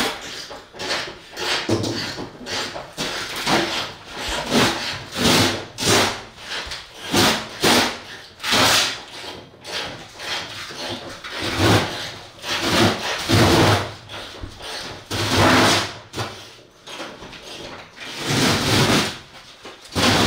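Rexine leathercloth wall covering being torn off a bus's interior wall panels, in a series of noisy rips about one every second or so.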